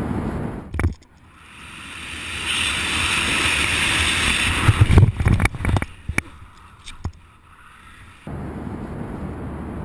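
Rushing air on a BASE jumper's body-mounted camera in freefall, a hiss that builds up over a couple of seconds. About five seconds in come a cluster of loud thumps and clicks. Near the end the sound switches abruptly to steady wind buffeting on a microphone.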